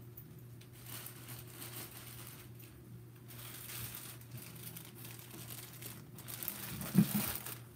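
Crinkly wrapping rustling and crinkling as it is handled and opened, with a louder bump near the end.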